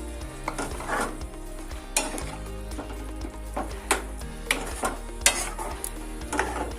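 Onion-tomato masala sizzling in hot oil in a pan while a spoon stirs it. The spoon scrapes and knocks sharply against the pan about eight times.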